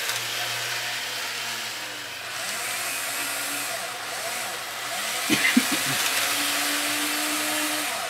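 Small electric motors of a motorised tilting model train layout running: the tilt drive raising the layout while the model locomotive runs around it, a steady whir with a low hum, a few clicks about five and a half seconds in. The running sound drops away at the very end as the tilt stops at its upper limit switch.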